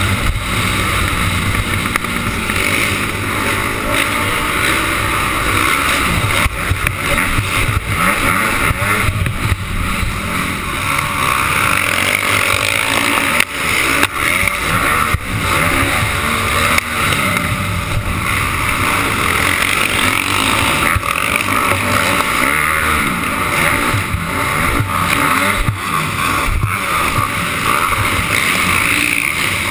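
Dirt bike engine revving hard and falling back again and again as the bike races around the track, heard close up from a camera mounted on the bike, with occasional knocks from bumps.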